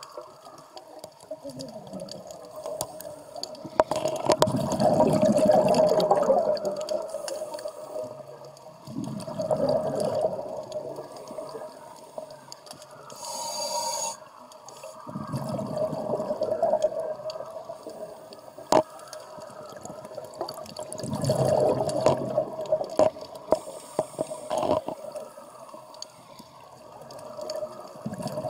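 Scuba divers' regulator exhaust bubbles gurgling underwater in bursts every five or six seconds, one for each exhaled breath, over a steady mid-pitched hum. A single sharp click comes near the end of the second third.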